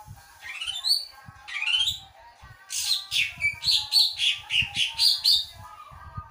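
Cucak ijo (green leafbird) singing. It gives two rising whistled phrases in the first two seconds, then a loud, fast run of sharp notes lasting about three seconds.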